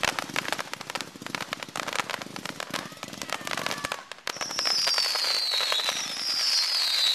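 Dominator Rip Rock and Roll fireworks cake firing a rapid barrage of shots and crackling bursts. About four seconds in the crackle stops, and a loud high whistle that falls in pitch starts up, repeating about every second and a half.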